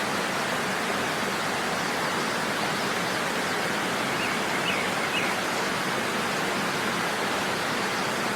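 Waterfall rushing steadily, with a few faint high chirps about four to five seconds in.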